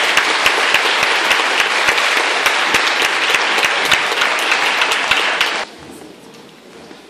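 Audience applauding, a dense patter of many hands clapping that stops abruptly about five and a half seconds in.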